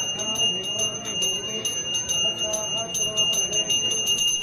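A temple bell rung rapidly and without pause during worship, about six strokes a second, its bright ringing tone held throughout, with voices murmuring beneath.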